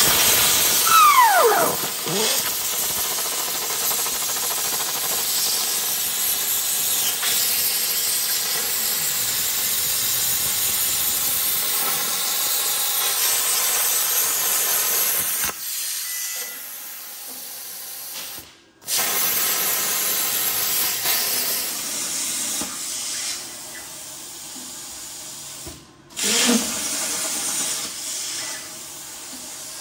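Plasma cutter arc cutting 16-gauge mild steel on a CNC plasma table: a loud, steady hiss that starts sharply. About halfway through it drops quieter, and it cuts off briefly twice.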